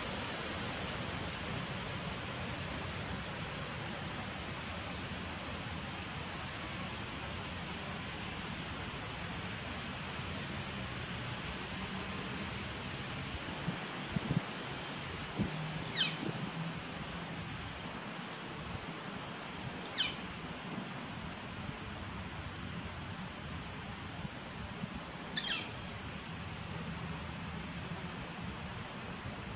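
Honeybees buzzing at the entrance of a nucleus hive, over a steady high trill of crickets. A bird gives a short call that falls steeply in pitch three times in the second half, a few seconds apart.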